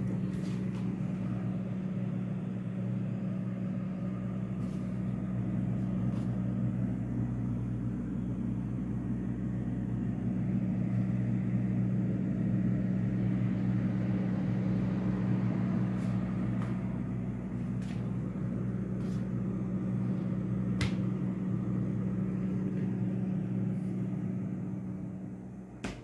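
Steady low mechanical hum of a running motor, holding a constant pitch, with a few faint clicks; it drops away right at the end.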